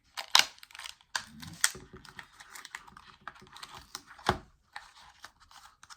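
Plastic twist-reveal toy package being turned by hand: a run of irregular clicks and rattles, with sharper clicks about half a second in and just past four seconds.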